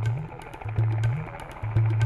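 Background music: a low bass note with a short upward slide repeats about once a second, over light percussion ticks.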